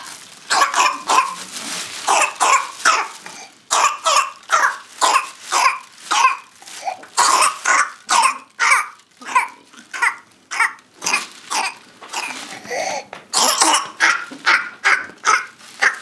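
A 4-month-old baby coughing in a long fit of short, rapid coughs, about two a second, with brief pauses between runs. It is the paroxysmal cough of whooping cough (pertussis), which the doctor judges almost certainly to be the cause.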